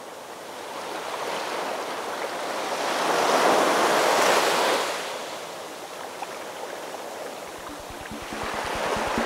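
Small waves breaking and washing up a sandy shore, the surf swelling to its loudest about four seconds in and then easing off. Music with a steady beat comes back in near the end.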